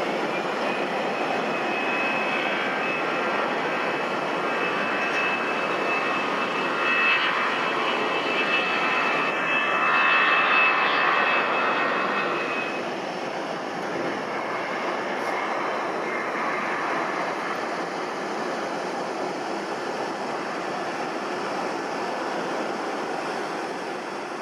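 Airbus A320's CFM56 jet engines spooling up to take-off thrust, a dense jet noise with a high whine that rises at the start and then holds steady. It is loudest about ten seconds in as the airliner passes, then eases off as it climbs away.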